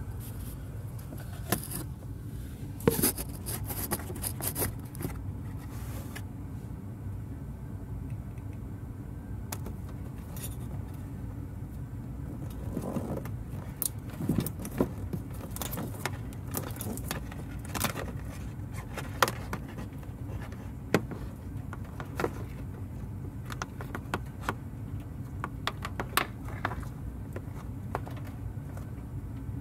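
Scattered light clicks, rattles and scrapes of a fog-light wiring harness being pushed and pulled through the plastic wheel-well liner behind the bumper, over a steady low hum.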